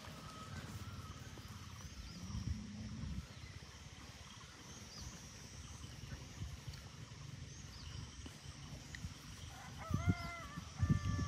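A puppy squirming and mouthing a hand on rough concrete, with low scuffling and rustling throughout. Faint short bird chirps repeat every second or two in the background, and the puppy gives a brief high whine near the end.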